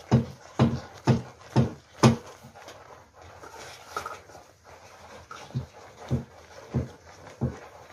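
Wooden paddle stirring a pot of steaming thick food, making rhythmic sloshing strokes about twice a second. The strokes stop for a few seconds midway, then resume more softly.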